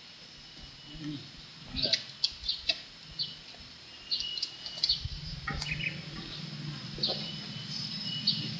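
Small birds chirping in short, repeated high calls. A low steady hum comes in about halfway through.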